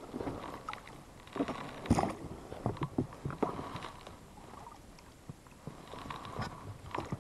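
Irregular knocks, clicks and splashy rustles from a small fishing boat on the water, the loudest knock about two seconds in, as the boat is rowed and its gear handled.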